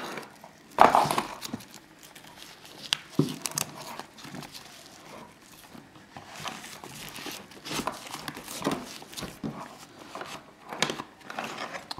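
Rustling and light knocks of a ballistic nylon knife sheath being handled, its straps and fasteners worked by hand, with a louder bump about a second in.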